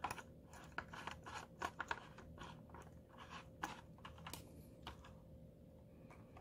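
Small plastic clicks and taps of a ring light being fitted and screwed onto its mount joint by hand, many in the first few seconds and fewer towards the end.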